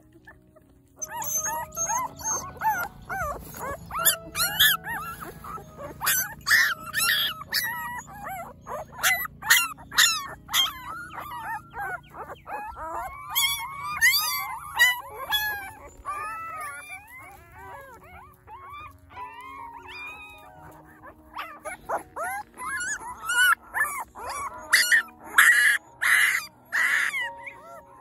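Newborn puppies whimpering and squealing: many short, high-pitched cries that rise and fall, starting about a second in, easing off in the middle and coming thick again near the end.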